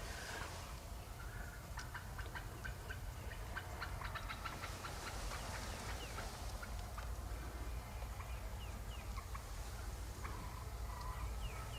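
Wild turkeys gobbling: a rapid rattling run of notes about two seconds in, and a few shorter calls near the end, over a low rumble of wind.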